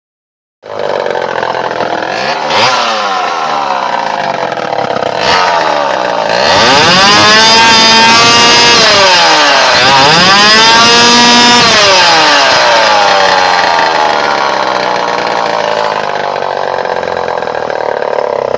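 Homelite EZ Automatic two-stroke chainsaw running, revved up twice in the middle and then dropping back to a lower speed. It is a temperamental runner whose carburettor, the owner thinks, needs cleaning and rebuilding.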